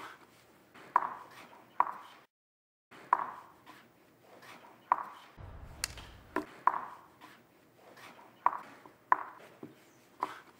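Wooden chess pieces set down on a wooden chessboard: about a dozen sharp clacks at uneven intervals, with a short silent gap about two seconds in.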